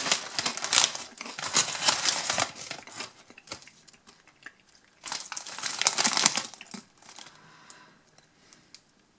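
Metallised foil crisp bag crinkling as a hand rummages in it and handles it, in two bouts of rustling: one at the start, the other about five seconds in.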